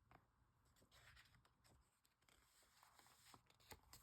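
Near silence: room tone, with a few faint clicks and one slightly louder click near the end.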